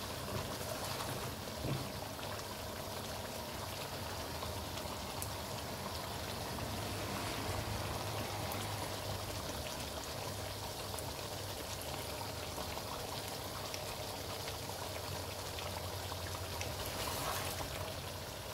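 Chicken karahi gravy bubbling and sizzling in a pan on a high gas flame, a steady crackling hiss, with a few light knocks of a wooden spoon in the first couple of seconds and a low hum underneath.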